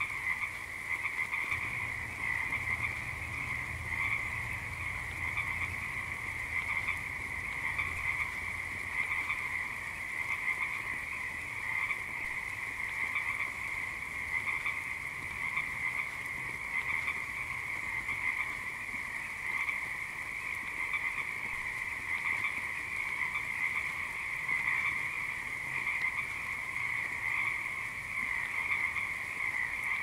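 A dense chorus of many frogs croaking at once, a steady unbroken mass of calls with no pauses.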